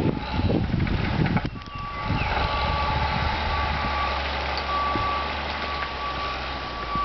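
A heavy vehicle's back-up alarm beeping steadily, about once a second, over a low engine rumble, starting about a second and a half in. Before that there is rough rustling noise on the microphone.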